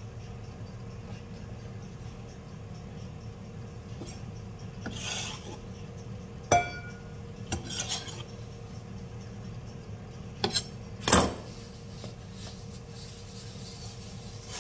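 Kitchen handling sounds over a steady low hum: hands brushing and rubbing across a wooden cutting board, a sharp ringing clink about six and a half seconds in, and a louder knock and clatter around eleven seconds in.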